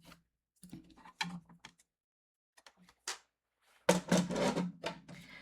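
Scattered light taps and clicks of paper and craft supplies being handled on a table, then a longer rustling scrape of paper about four seconds in.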